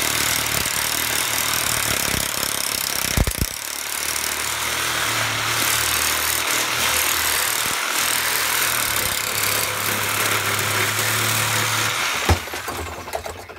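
Reciprocating saw cutting through an air-conditioning coil's copper tubes and aluminium fins beside the tube sheet, running steadily. It stops about twelve seconds in with a sharp clank.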